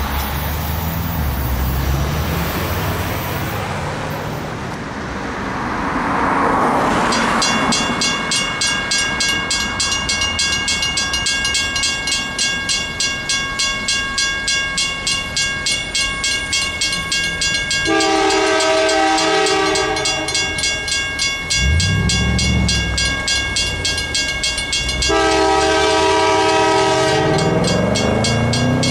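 Mechanical railroad crossing bell ringing, its electromagnet-driven hammer striking the gong about two or three times a second, each strike leaving a lingering metallic ring. A train horn sounds twice over the bell, a longer blast and then a shorter one. At the start, passing road traffic is heard.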